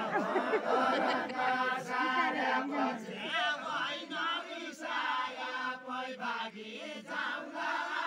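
A group of men singing a Deuda folk song together, many voices chanting the melody at once.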